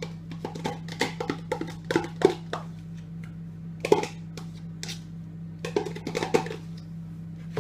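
A spoon knocking and scraping against a sour cream tub and a bowl in quick, irregular clicks as the sour cream is scooped out and divided, with music playing underneath.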